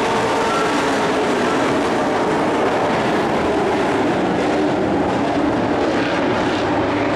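Pack of dirt-track race trucks racing, several engines running hard together. A steady, loud drone whose pitches slowly rise and fall as the trucks go round.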